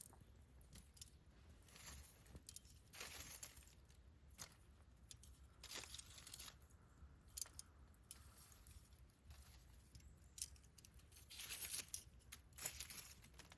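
Burning campfire wood crackling faintly, with irregular snaps and pops.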